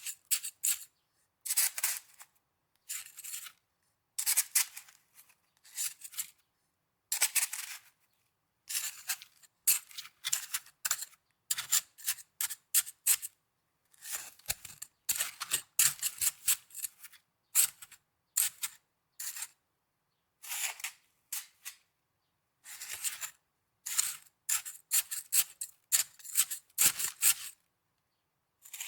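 Snow being handled close to the microphone: a long series of short, crisp crunches and scrunches, irregular and sometimes in quick clusters, with silent gaps between them.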